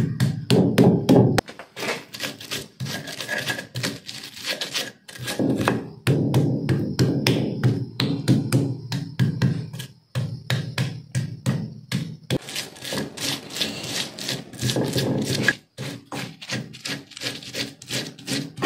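Stone pestle crushing and grinding ingredients on a flat stone mortar (ulekan and cobek): quick runs of stone-on-stone knocks and scraping, pounding ginger, then garlic and shallots with coarse salt, then fresh chilies.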